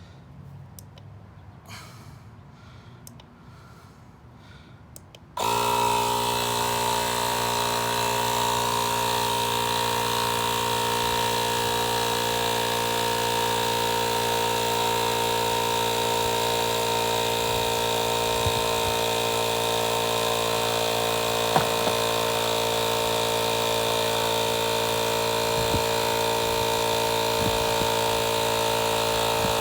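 Battery-powered portable tire inflator (a small air compressor) switching on suddenly about five seconds in, after a few faint clicks, then running steadily with an even motor hum.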